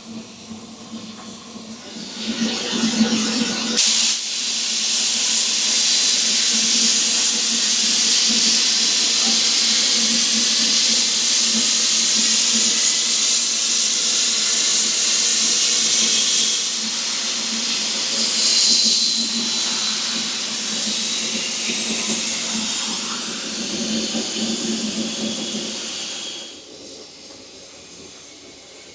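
Narrow-gauge steam locomotive letting off steam: a loud, steady hiss that starts about two seconds in and dies away near the end.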